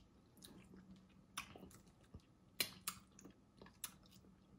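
Faint wet mouth sounds of a person eating a saucy shrimp boil: chewing, with a few sharp lip smacks as he sucks sauce off his fingers.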